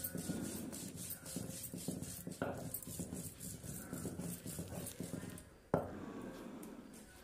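Spice paste being ground on a sil-batta, the stone muller rubbed back and forth over the flat grinding stone in even strokes, about four a second. The strokes stop a little over five seconds in with a single sharp knock.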